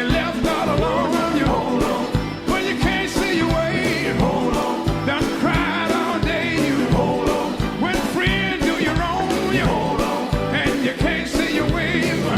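A rock song with sung vocals and a steady drum beat.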